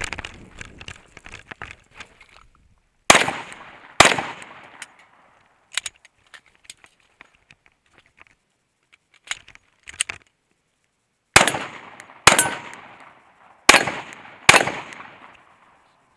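Glock 19C 9mm pistol firing six shots in pairs: two about three seconds in, then two more pairs near the end, each shot a sharp crack with a short ringing tail. Rustling of the shooter's movement and gear comes before the first shot.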